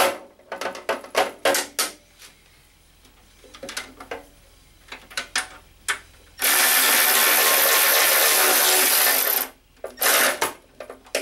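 Cordless drill-driver running steadily for about three seconds past the middle, driving a screw; a run of sharp clicks and knocks comes about a second in and again near the end.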